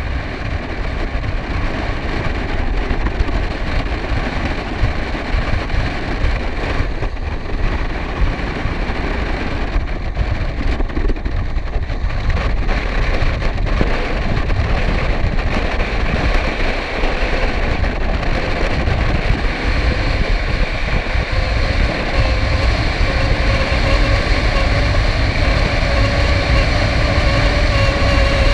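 Wind rushing over the microphone at downhill speed, mixed with inline skate wheels rolling on wet asphalt, a continuous rush with heavy low rumble. A faint whirring tone grows and rises slightly over the last several seconds.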